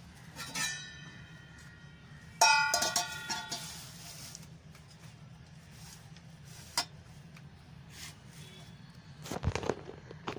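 Dishes clinking as a glass bowl of water is shifted about: a light clink about half a second in and a louder ringing clink a couple of seconds later. A faint click and a soft knock with rustling follow near the end.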